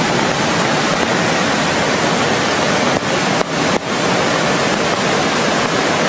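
Rushing water of a flooded river and waterfall: a loud, steady rush, swollen too high to cross. The sound dips briefly twice about three and a half seconds in.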